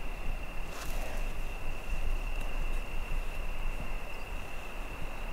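A steady high-pitched insect trill runs unbroken over a low rumble on the microphone, with a brief rustle about a second in.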